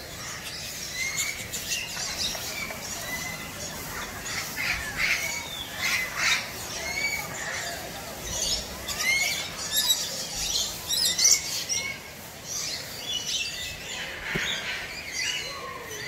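Many aviary birds calling together: a short rising chirp repeating about once a second, with harsh squawks mixed in, the loudest a little past the middle.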